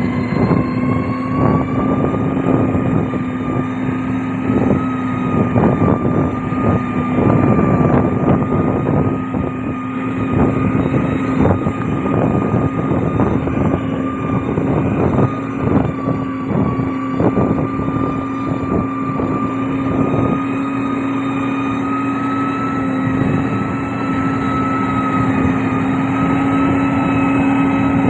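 Heavy road-construction machine's diesel engine running steadily with a constant hum and whine, with irregular clattering and knocking through most of the first twenty seconds.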